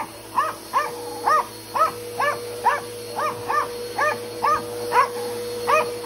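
Small dog barking over and over, about two barks a second, at a running upright vacuum cleaner. The vacuum's motor hums steadily underneath.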